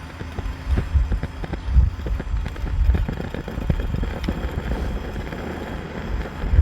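Coleman 242B pressure lantern burning on a freshly lit mantle and sputtering: an uneven rumble that swells and fades, with irregular crackles as the flame surges.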